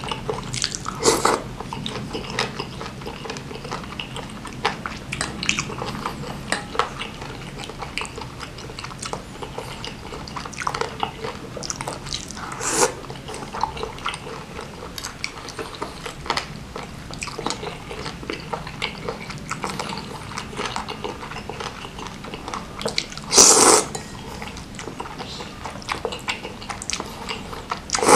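Close-miked eating of spicy seblak: steady wet chewing and mouth clicks on meatballs and boneless chicken feet. There are two louder slurps, one about 23 seconds in and one at the very end as noodles are sucked in.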